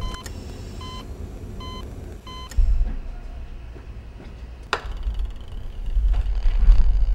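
Heart-rate monitor beeping steadily, a short electronic tone about every three-quarters of a second, which stops about two and a half seconds in. Later there is a low rumble and one sharp click.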